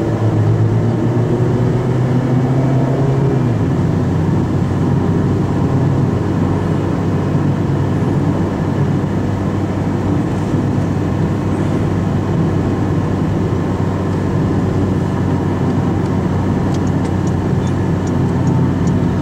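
Car driving at highway speed, heard from inside the cabin: a steady drone of engine and tyre noise. One humming note in the engine sound stops about three and a half seconds in.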